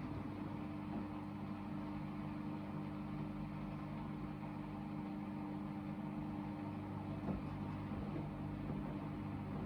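Hoover VHD 9163 ZI washing machine in its first spin after the main wash, the motor and drum running at a steady speed with a steady hum.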